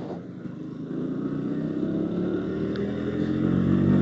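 Motorcycle engine, heard from the rider's seat, accelerating: after a brief dip at the start, its pitch and level rise steadily.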